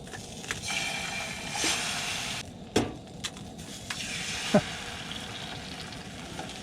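Eggs sizzling as they fry in a hot pan, the sizzle strongest in the first couple of seconds and then settling to a lower hiss. A couple of sharp clicks of a utensil against the pan come about three and four and a half seconds in.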